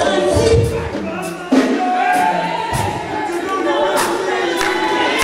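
Live gospel duet: a man and a woman singing into microphones over instrumental backing, with drum strikes.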